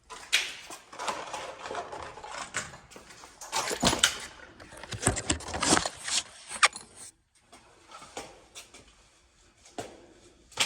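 Irregular metallic clinks, knocks and scraping from hardware being handled, such as nuts and washers on threaded hanger rod. The sounds are busy for the first seven seconds or so, then fall to a few faint ticks.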